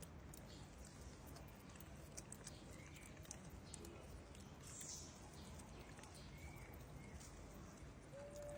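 Faint outdoor background with scattered small ticks and rustles, a couple of faint short chirps, and one brief clear animal call near the end.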